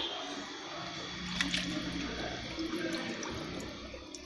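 Water pouring and splashing into a tub as a tray of freshwater pearl mussels is submerged, with a few faint clicks about a second and a half in.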